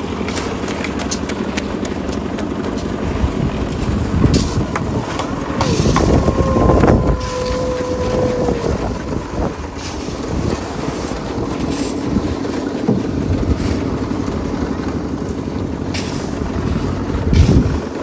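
A portable concrete mixer's engine running steadily, with scattered knocks and scraping from hand tools on wet concrete.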